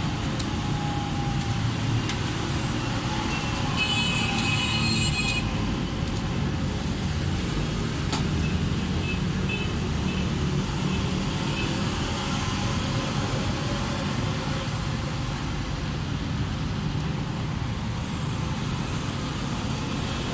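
Steady low engine rumble of motor vehicles running, with a brief high hiss about four seconds in.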